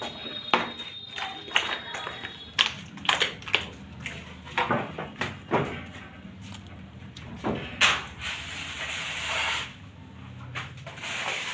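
Irregular slaps and clicks as handfuls of wet plaster of Paris are pressed and smeared onto the wire mesh of a metal false-ceiling frame.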